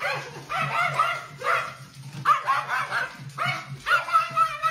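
A dog giving short, high-pitched cries that rise and fall, about six in a row, over a low steady hum.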